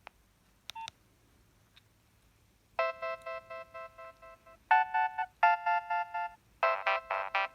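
Preloaded Nokia 3120 ringtone starting about three seconds in: one long synthesised chord that fades away, then two shorter chords and a run of quick notes. It follows a near-silent gap with a brief click.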